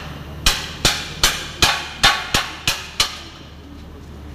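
A hammer striking steel at a truck's wheel and chassis, eight sharp ringing blows at about two and a half a second, stopping about three seconds in.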